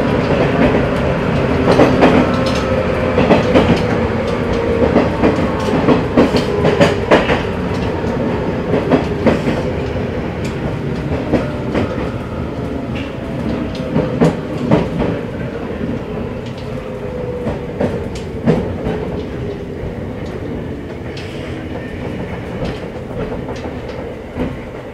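Running sound inside a JR 185 series electric train's motor car, heard from the vestibule: steady rumble with the wheels clicking over rail joints, and motor and gear whine slowly falling in pitch as the train slows. The clicks come thick at first and thin out, and the whole sound grows quieter towards the end.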